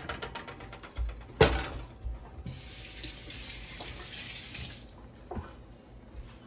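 A kitchen tap runs into the sink for about two seconds, as an even hiss that starts and stops cleanly. Before it comes a sharp knock, the loudest sound here, and over the first second a light crackling from bread frying in the pan.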